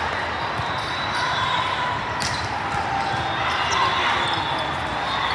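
Volleyball hall din: balls bouncing and being struck on the courts, with a sharp smack about two seconds in, over a steady murmur of distant voices.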